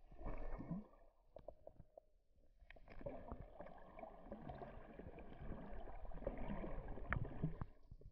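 Water gurgling and sloshing against an underwater camera, with scattered clicks and a low rumble; a short burst about half a second in, then a steadier, louder stretch from about three seconds in.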